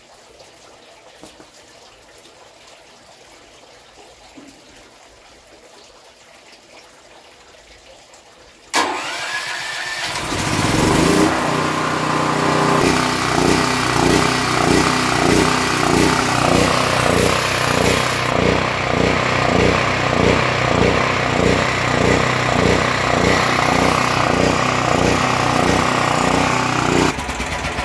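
Westinghouse WGen9500 portable generator's single-cylinder engine starting abruptly about nine seconds in, then running loudly with a rise and fall about twice a second. The owner puts the engine's surging down to bad gas in the tank.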